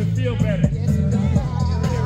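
Music: a singing voice with wavering, held notes over a steady low backing.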